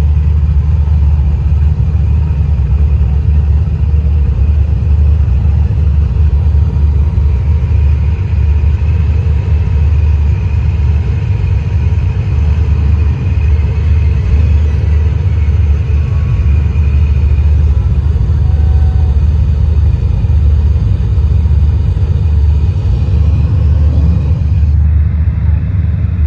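Steady, loud low rumble of car engines running.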